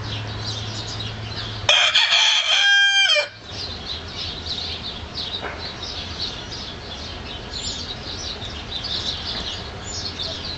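A rooster crows once, about two seconds in, the loudest sound here, lasting about a second and a half and dropping in pitch at the end. Small birds chirp steadily in the background throughout.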